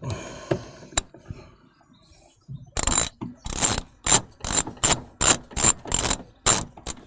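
Hand socket ratchet on a long-reach 10 mm socket and extension, clicking in quick back-and-forth strokes, about two to three a second, starting about three seconds in, as it undoes the bottom bolt of a car's rear light cluster.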